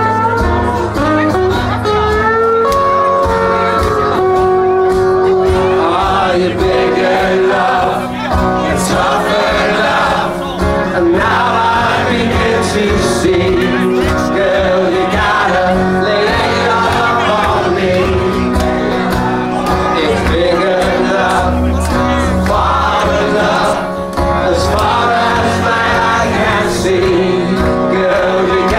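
Live band music with a man singing, loud and continuous, heard from among the audience.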